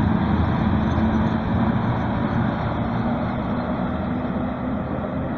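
A pair of coupled electric locomotives, an EU07 and an ET22, running light past and away: a steady mechanical rumble that fades gradually as they draw off.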